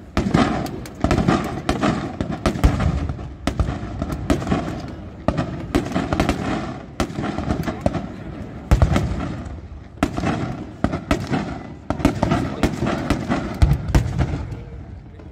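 Professional fireworks display: aerial shells bursting one after another, a sharp bang every second or two, each dying away into crackle.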